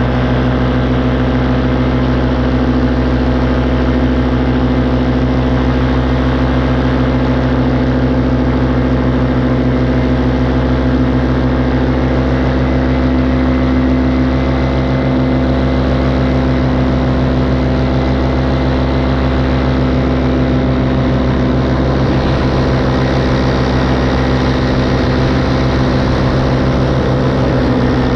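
Small propeller aircraft engine heard from the pilot's helmet, running steadily at cruise power with an even pitch.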